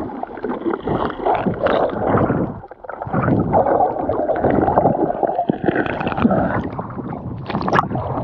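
Muffled sloshing and gurgling of water heard through an underwater action camera, with scattered small knocks and clicks and a short lull about three seconds in. A sharp splash near the end as the camera breaks the surface.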